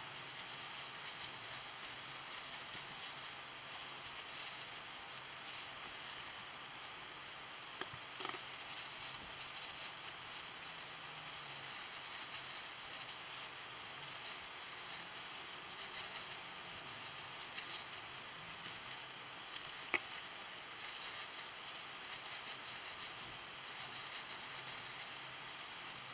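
Plastic-gloved hands rubbing and squishing hair dye through wet hair, a dense fine crackling rustle that goes on throughout. One sharp click about twenty seconds in.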